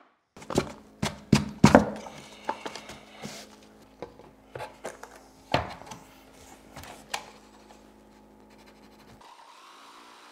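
Laminate floor planks knocking and clacking as they are handled and set in place, a string of sharp wooden knocks over the first seven seconds, loudest near the start. Near the end a Milwaukee M18 Fuel cordless jigsaw runs briefly and quietly.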